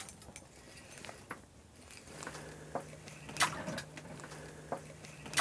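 Soft clicks and ticks of a spinning reel being cranked while a hooked sauger is reeled up through the ice hole. A low steady hum comes in about two seconds in.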